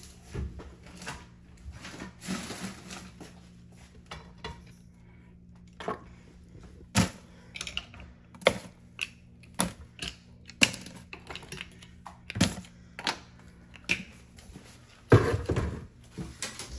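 Mussel shells dropped one at a time into a plastic-lined kitchen trash bin: a series of sharp clicks and clatters about a second apart, with a denser, louder burst of clattering near the end. These are rejected mussels being thrown out.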